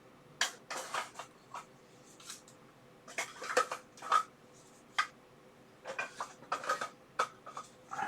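Light, irregular clicks and knocks of small plastic component boxes and parts being handled on a workbench, about a dozen in all.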